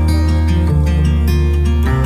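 Background music: a song with plucked acoustic guitar over a strong, steady bass.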